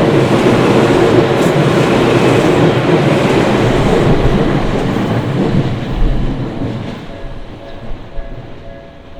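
Tokyu Oimachi Line commuter train passing over a level crossing: the steady rumble of wheels on rail, fading away over the last three seconds as the train clears. As it fades, the crossing's warning bell comes through, ringing in a repeating pattern.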